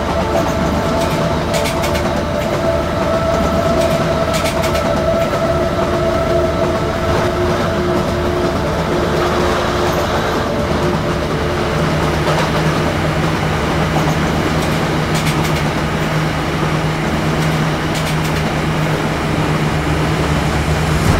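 High-speed electric train running at speed: a steady rumble of wheels on rails with some clickety-clack. A higher hum fades out and a lower hum comes in about halfway through.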